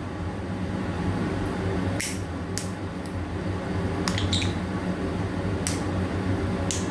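Parrot imitating a lighter: several short, sharp, hissy clicks, irregularly spaced with a quick cluster in the middle, over a steady low hum.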